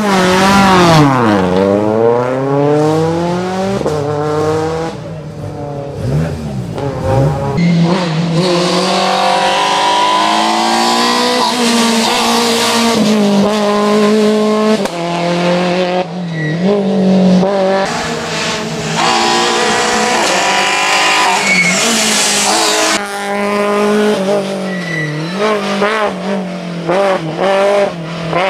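Rally-prepared Citroën C2 hatchback engine revving hard and dropping back again and again as the car runs a tight slalom between cones. The tyres squeal at times.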